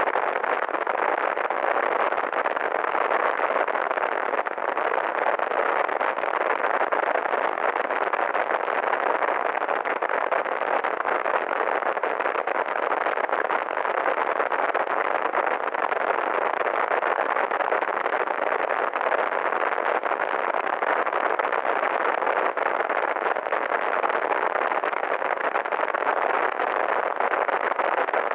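Synthetic sound effect: a steady, unchanging hiss of filtered noise in the middle range, with no pitch or rhythm.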